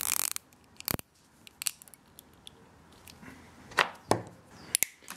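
A nylon cable tie being ratcheted tight around a small video transmitter makes a short zipping rasp at the start. Side cutters then snip off the tie's tail with sharp clicks in the second half.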